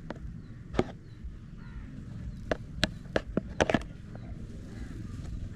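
Irregular sharp knocks and taps, about seven in all, one about a second in and a quick cluster near the middle, over a steady low rumble.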